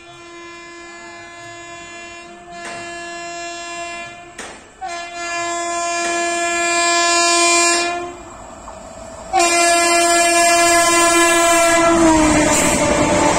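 Horn of an Indian Railways WAP-7 electric locomotive sounded in three long blasts as an express approaches at speed, each louder than the last; the last one drops in pitch as the locomotive passes. Then comes the loud, steady rush of the train's coaches running through without stopping.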